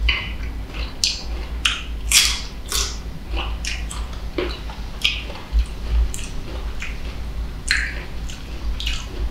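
Crisp green mango bitten and chewed close to the microphone: a string of short, sharp, wet crunches, two or three a second and uneven, over a low steady rumble.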